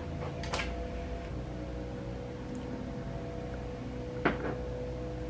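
Steady low background hum with a faint constant tone, broken by two short clicks, one about half a second in and one a little after four seconds, as of makeup items being handled.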